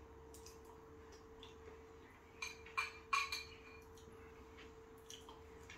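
A metal fork clinking and scraping against a ceramic bowl as salad is scooped up: a few light clicks, clustered with the loudest about three seconds in. A faint steady hum runs underneath.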